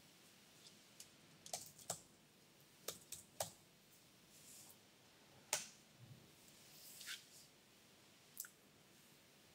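Faint, irregular keystrokes on a laptop keyboard: about a dozen sharp clicks at uneven gaps, bunched in the second to fourth seconds, the loudest about five and a half seconds in.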